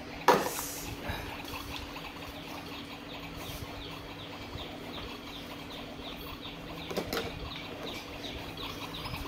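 A small motor hums steadily with a quick fluttering rhythm. Plastic toy pieces clack sharply just after the start and again about two-thirds through.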